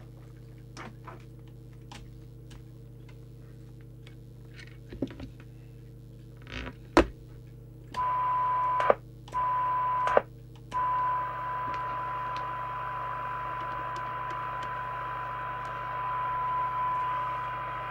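Midland 77-095 CB radio's speaker, with a low hum and a few faint clicks, then about eight seconds in the squelch opens with a click on the signal generator's steady test tone over hiss. It cuts out twice briefly with clicks as it hovers at the squelch threshold, then holds open.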